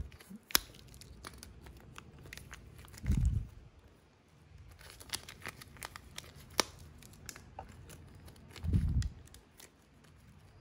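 Plastic packaging crinkling and rustling under hands working with small servo parts, with scattered sharp clicks and two dull low thumps, about three and nine seconds in.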